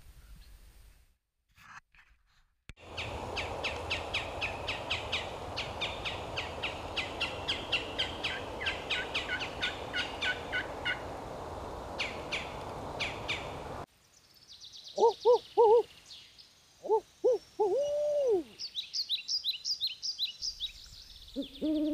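A steady hiss with a long run of fast, repeated high bird chirps, cutting off suddenly. Then an owl hoots: short hoots in twos and threes, ending in a long falling hoot, while quick high bird calls follow near the end.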